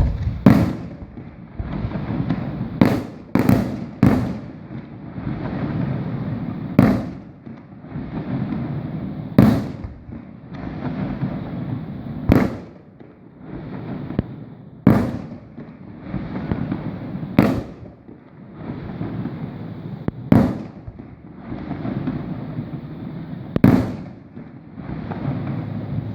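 Aerial fireworks shells bursting: about a dozen sharp booms, two to three seconds apart and three in quick succession near the start, each trailing off into a low rolling echo that fills the gaps.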